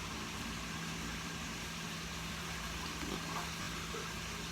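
Steady room background noise: a low hum under an even hiss, with a few faint, brief knocks.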